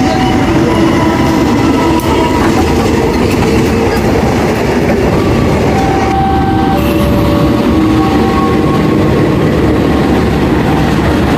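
KAI diesel-electric locomotives passing close with their trains: a loud, steady rumble of engine and wheels on the rails.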